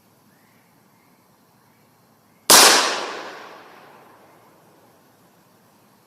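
A single shot from a Taurus .357 snub-nose revolver about two and a half seconds in, its report echoing and dying away over about a second and a half.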